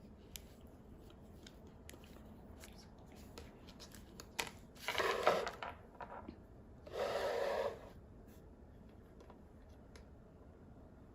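Doll packaging being handled: scattered small clicks and taps, and two brief bursts of rustling or tearing packaging about five and seven seconds in.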